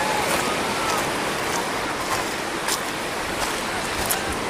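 Steady rushing outdoor ambience, with faint distant voices near the start and a few light clicks.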